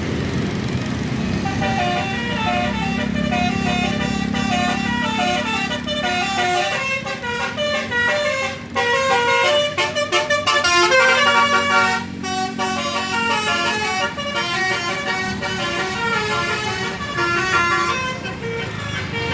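Tour bus telolet horns playing quick, stepped tunes over a running bus engine. The tunes start about a second and a half in, and several overlap and get loudest near the middle.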